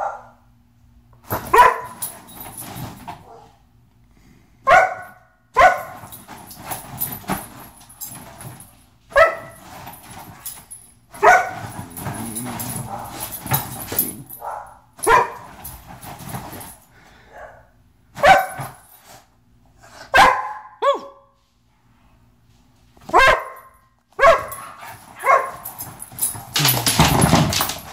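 Rhodesian Ridgeback play-barking: about a dozen short, sharp barks a second or a few apart, with scuffling on the bedding between them as she bounces around in play bows.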